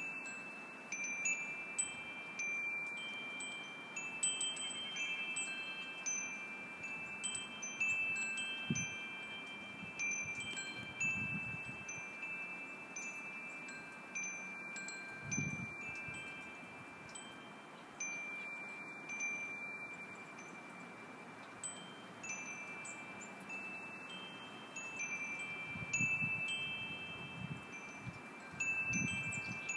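Wind chimes ringing irregularly, a few high, clear notes struck every second or two and each ringing on for a second or more.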